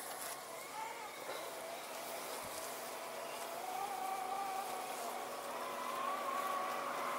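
Worx Landroid M WR141E robotic lawn mower running across the grass: a thin electric motor whine that wavers and rises slightly in pitch, growing louder in the second half.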